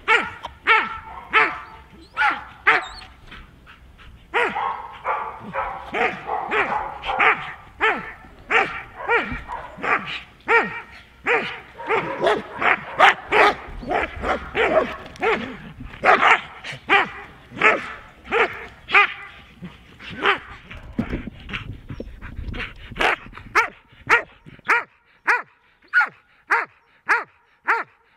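Border collie barking over and over in quick succession, about two barks a second: his reactive, aggressive display at another dog.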